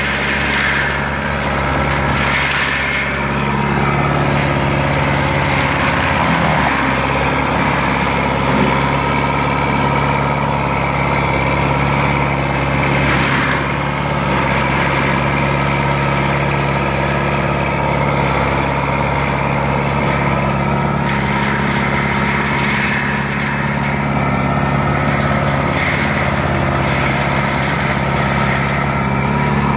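Diesel engine of a Lamtrac LTR6125 tracked forestry mulcher running steadily at working speed, with its Denis Cimaf 180D mulcher head driven through brush. There are a few brief louder flares of grinding, about three seconds in, around the middle and near the end.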